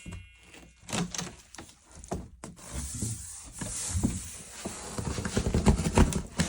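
Packaging and a boxed ATV rear bumper being handled: irregular knocks and clicks with rustling that gets busier about halfway through.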